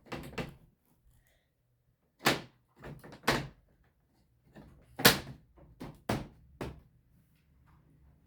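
Hard knocks and clacks from an old Sharp TV's casing being handled and worked on during disassembly. There are about eight separate knocks, the loudest about five seconds in.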